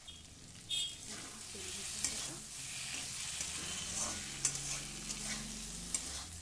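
Metal spatula stirring and scraping potato chunks in spiced masala around an aluminium kadai, with mustard oil sizzling as the masala fries. Scattered scrapes and clicks of the spatula on the pan start about a second in.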